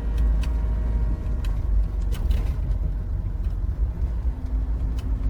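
Steady low rumble of a road vehicle running, with a few faint clicks.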